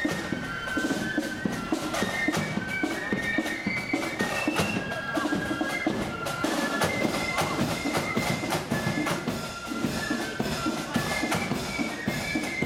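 Marching flute band playing: a high flute melody over rattling snare drums and a bass drum.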